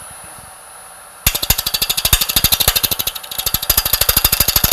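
Scraper cutting an out-of-round wooden blank spinning on a wood lathe: the lathe runs quietly at first, then about a second in the tool meets the wood and sets up a rapid, even knocking, about ten knocks a second, as it strikes the high spots of the not-yet-round blank.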